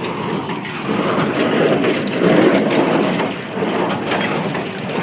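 Hay rustling and crunching, with scattered small crackles, as it is handled or trodden.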